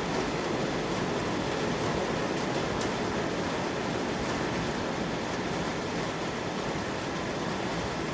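Freight train wagons rolling past on the rails: a steady rumble of wheels on track, easing slightly toward the end.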